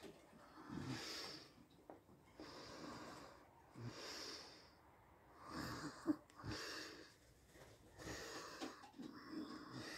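A man's breathing close to the microphone, a faint breath every second or two.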